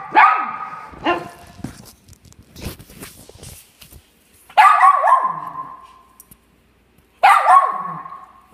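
Small dog barking in high-pitched barks: one at the start, another about a second in, then two quick barks in the middle and two more near the end. Faint knocks and rustling fill the quieter gap between the barks.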